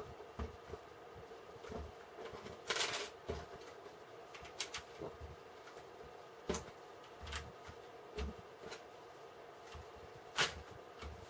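Plastic building bricks being handled and pressed together: scattered sharp clicks, with a short clattering rattle about three seconds in.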